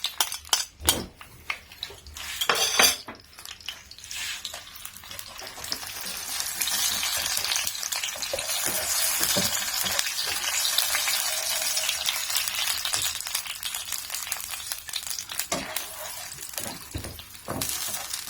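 Grated tomato frying in hot oil in a pan: a few utensil clinks and scrapes at first, then steady sizzling that builds from about four seconds in and holds.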